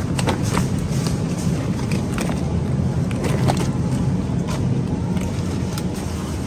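Steady low hum of supermarket ambience at an open refrigerated meat case, with light scattered rustles and ticks of plastic-wrapped meat packages being handled.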